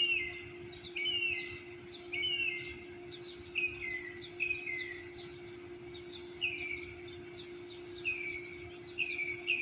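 Birds singing: one bird repeats a clear whistled note that slides downward, about once a second, with fainter high chirps from other birds. A steady low hum runs underneath.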